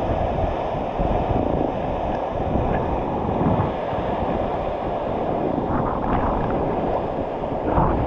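Waterfall pouring into a rock pool: a steady rushing roar, with water lapping and splashing right at the microphone as it is carried along the surface.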